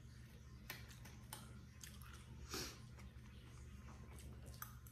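Quiet eating sounds at a table: soft clicks and chewing, with one brief louder scrape about halfway through, over a low steady hum.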